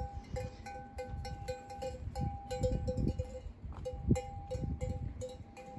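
Bells on cattle clanking irregularly as the animals walk, several ringing strokes a second at a couple of fixed pitches. A sharp knock about four seconds in.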